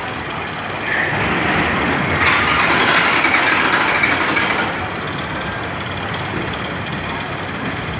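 Small steel roller coaster's train rattling along its track: a rushing metallic clatter that swells about a second in and eases off just before halfway.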